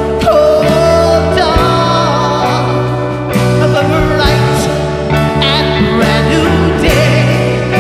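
Live rock band playing an instrumental passage: steady bass, drum and cymbal hits, and a wavering lead melody over them.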